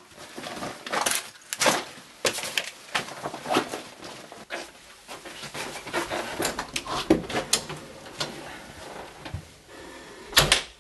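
Irregular footsteps, knocks and handling noises of someone moving through a house, with one loud sharp bang near the end.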